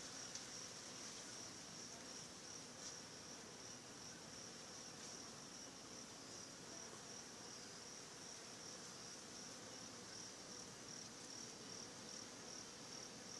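Faint, steady high-pitched trill of insects such as crickets, becoming an even pulsing in the later seconds.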